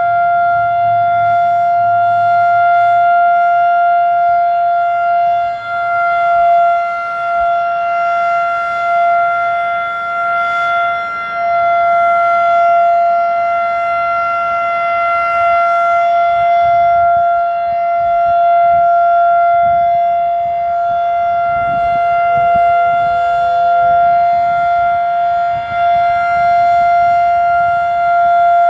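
Federal Sign & Signal Model 5 electromechanical warning siren sounding its full alert: one steady tone held at constant pitch, with a few slight dips in loudness. It is an old, somewhat rusty unit still running healthily.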